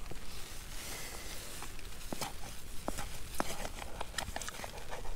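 A man chewing a mouthful of sausage and beans close to the microphone, with scattered small mouth clicks and light rustling.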